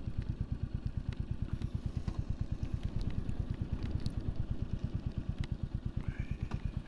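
Royal Enfield Classic 350's single-cylinder engine running at low revs, an even steady thump of about eight or nine beats a second.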